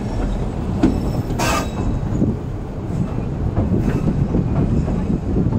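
Train running across a steel railway trestle, heard from an open carriage window: a steady low rumble with scattered clicks and knocks from the wheels, and a brief sharper, brighter noise about one and a half seconds in.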